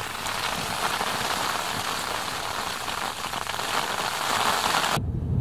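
Snow and ice pellets falling on a tent, heard from inside as a dense, even hiss of tiny hits on the tent fabric. It cuts off sharply near the end, giving way to a low rumble.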